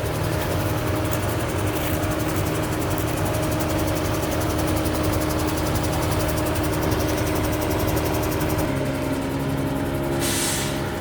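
Engine of a pothole-patching machine running steadily, its note dropping slightly about three-quarters of the way through, with a short hiss of air near the end as the machine blows crumb into the potholes under pressure.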